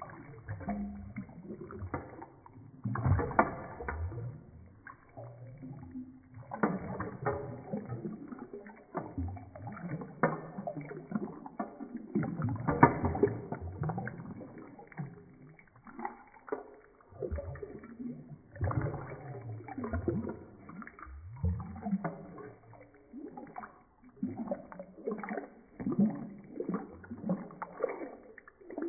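Water in a bathroom sink sloshing and gurgling in irregular bursts as it is stirred around the drain.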